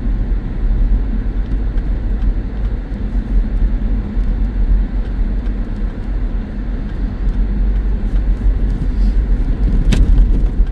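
Jeep driving on a snowy road, heard from inside the cabin: a steady low engine and tyre rumble, with one sharp click about ten seconds in.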